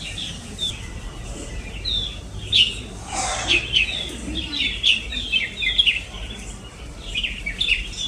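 Red-whiskered bulbuls calling one after another: a rapid, overlapping stream of short, high, downward-slurred chirps, with a brief noisy burst about three seconds in.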